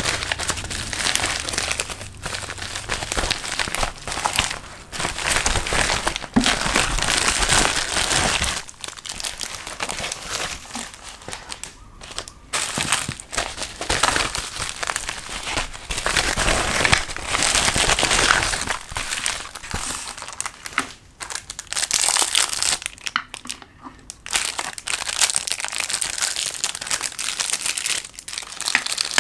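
Plastic packaging crinkling and rustling in uneven bursts as bubble-wrap mailers and plastic wrapping are unwrapped by hand, with short pauses between handfuls.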